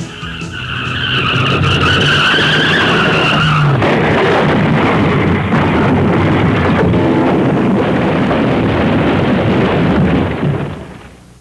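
A train running, with a high wavering squeal for the first few seconds, then a steady rumble that fades out near the end.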